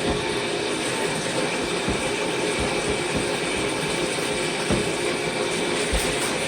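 Tap water running steadily, with a few soft knocks as plastic vacuum parts are handled under it.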